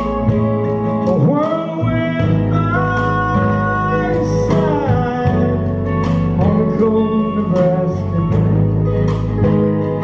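Live country band playing, with a male lead voice singing over guitars and long held notes.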